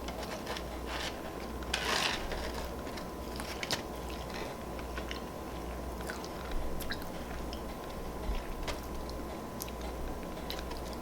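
Close-up mouth sounds of a person biting into and chewing a soft frosted chocolate donut, with scattered small wet clicks and a louder bite about two seconds in.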